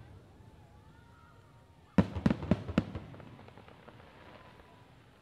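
Aerial fireworks display: after a short lull, a quick cluster of four or five sharp shell bursts about two seconds in, each report echoing and trailing off.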